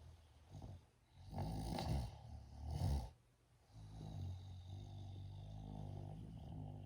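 A person snoring. Two louder, rougher breaths come about one and a half and three seconds in, followed by one long, steady, low droning snore in the second half.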